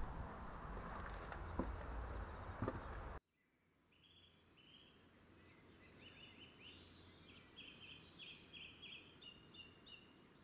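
Wind buffeting the microphone outdoors, with a few clicks, cuts off abruptly about three seconds in. Songbirds then sing over quiet ambience: many short high chirps and rapid trills, overlapping.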